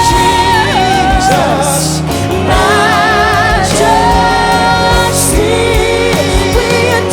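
Live worship band music with a voice holding long notes with vibrato, no words made out.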